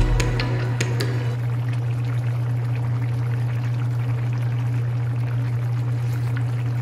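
Coconut-milk stew with taro, okra and eggplant bubbling and fizzing at a boil in a wide pan, over a steady low hum.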